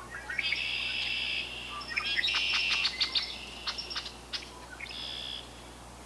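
Red-winged blackbird singing: several short, dense trilling phrases with sharp clicking call notes among them, stopping about half a second before the end.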